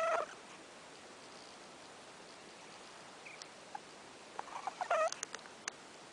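Domestic cat snoring in its sleep: a short, squeaky, whistling snore about five seconds in, with a few faint clicks around it. The fading end of a similar snore comes right at the start.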